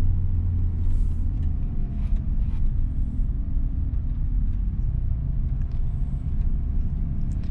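Cabin sound of a 2022 Mitsubishi Xpander CVT's 1.5-litre four-cylinder engine and tyres: a steady low drone as the car, carrying five people and a lot of luggage, pulls up a winding hill in D. A faint steady whine runs through it from about a second in.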